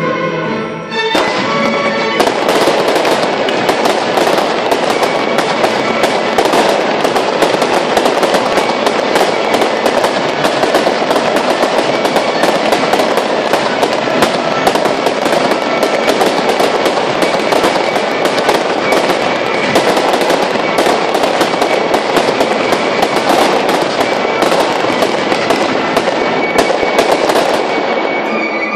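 Fireworks barrage: a dense, unbroken run of rapid bangs and crackles that starts about a second or two in and stops just before the end.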